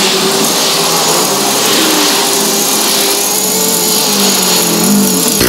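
Craftsman 32cc two-stroke string trimmer running while it edges along a curb, its engine note wavering a little, with road traffic passing.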